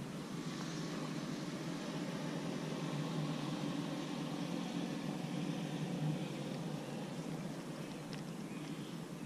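Steady hum of a running motor vehicle, easing slightly near the end.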